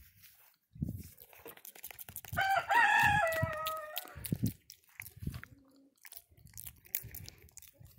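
A rooster crowing once, a crow of about a second and a half and the loudest sound, its long last note falling slightly. Around it, a monkey chews and handles food close by, with soft knocks and clicks.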